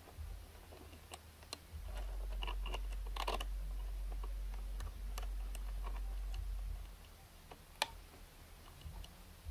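OO gauge model mobile crane being worked: light mechanical clicks and ticks as the jib slews and lifts, with a low steady hum for about five seconds from about two seconds in, and one sharper click near the end.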